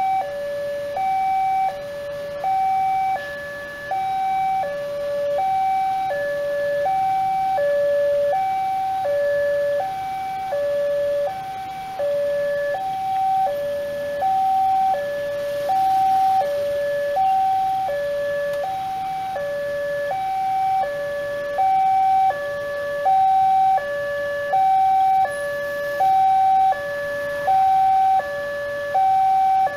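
Indonesian railway level-crossing warning alarm sounding from the signal's loudspeaker. It is a two-tone electronic alarm, a higher and a lower note alternating evenly about every two-thirds of a second. This warns that a train is approaching and the barrier is down.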